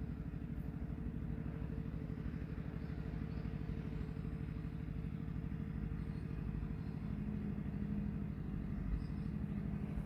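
An engine running steadily nearby, a low, even throb with a faint steady hum over it.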